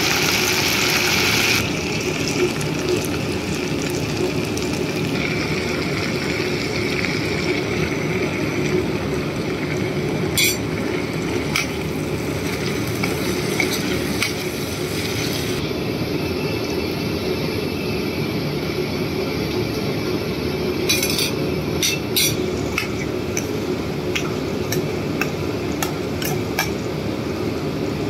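Chicken pieces frying in hot oil in a non-stick pan, a steady sizzle, while a metal spoon stirs them. The spoon clinks against the pan now and then, most often in the second half.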